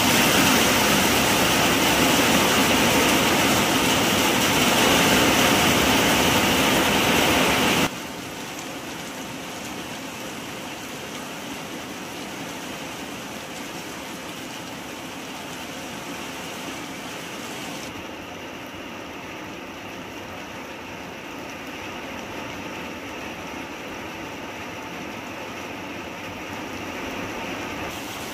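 Heavy rain falling steadily, loud for the first eight seconds, then cutting abruptly to quieter, steady rain falling on the wet ground.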